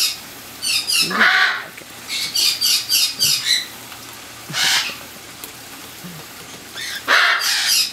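Cockatiels calling: quick runs of high chirps in the first few seconds, then a few single harsher screeches, the loudest near the end.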